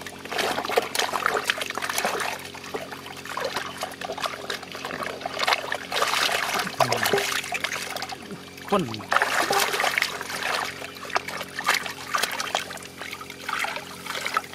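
Shallow muddy water splashing and sloshing in irregular bursts as hands dig through the mud and grab catfish, with trickling as water runs off the hands.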